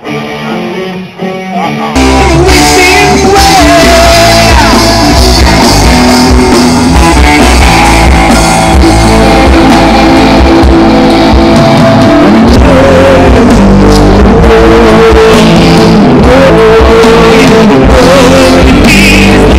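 Rock band playing loud, with electric guitar and a singer, cutting in abruptly about two seconds in after a quieter stretch.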